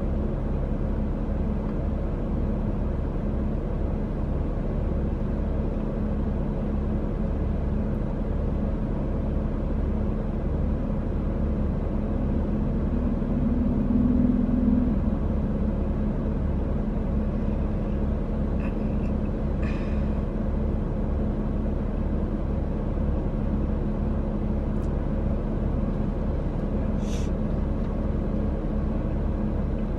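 Steady road and engine rumble inside a moving car's cabin, with a low hum that swells briefly about halfway through and a few faint clicks later on.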